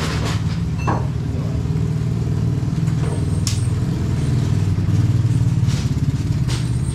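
An engine running steadily, a little louder about five seconds in, with a couple of faint knocks.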